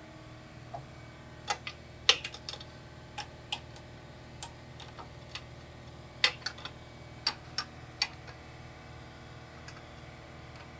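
Sharp, irregular metal clicks and taps as a metal shift rod is fitted through the bellhousing to a SADEV sequential gearbox's shift linkage, most of them between about one and a half and eight seconds in, over a faint steady hum.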